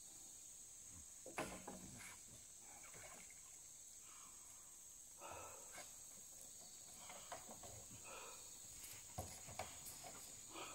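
Faint, steady, high-pitched insect drone, with a few soft knocks now and then.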